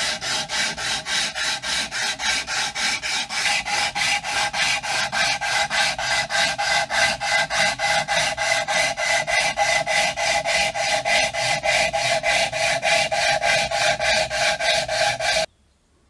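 Steel card scraper being pushed and pulled over a new wooden hammer handle, shaving it to shape. Each stroke gives a rasping scrape, about four a second in an even rhythm, and the strokes stop suddenly near the end.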